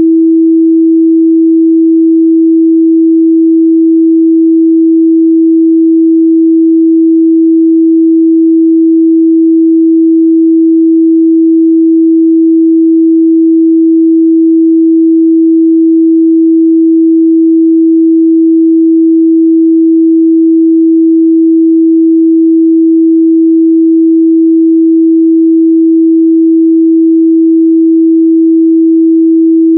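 A pure 326 Hz sine-wave test tone, a single steady mid-range pitch held at a constant loud level.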